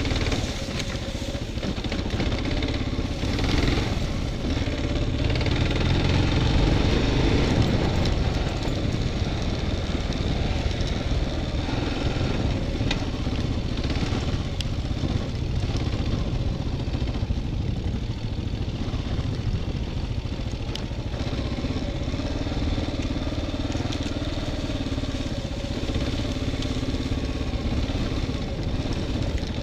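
Dual-sport motorcycle engine running steadily while riding a rough grass and dirt trail, getting a little louder around six to eight seconds in, with scattered knocks from the bumps.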